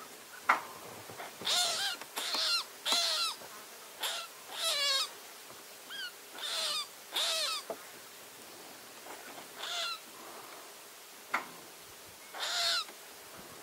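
A rabbit screaming in distress as a mongoose bites into it: about a dozen high, pitched cries, each under half a second, in quick runs with short pauses between, one with a wavering trill.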